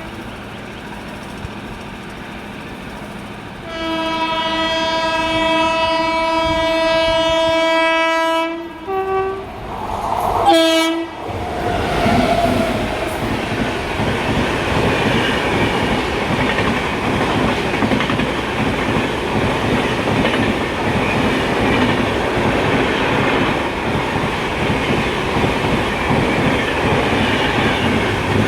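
Train horn sounded in one long blast of about five seconds, then two short blasts. The train then passes, its wheels clattering steadily over the rails.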